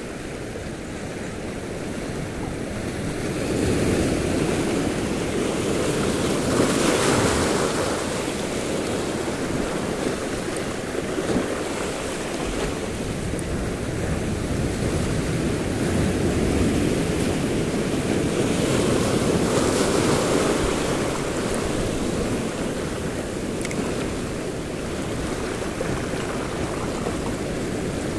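Sea waves breaking and washing in over a shallow reef near the shore, swelling louder twice, about four seconds in and again around sixteen to twenty seconds, with wind on the microphone.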